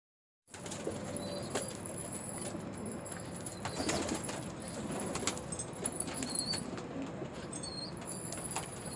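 Domestic pigeons cooing, with wings flapping and scattered clicks, and a few short high chirps.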